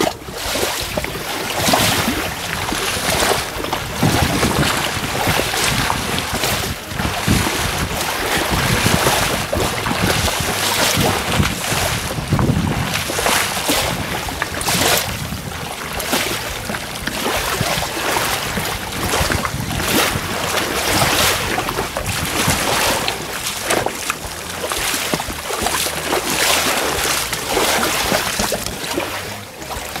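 Small sea waves lapping and slapping irregularly against the edge of a wooden pier, with wind buffeting the microphone.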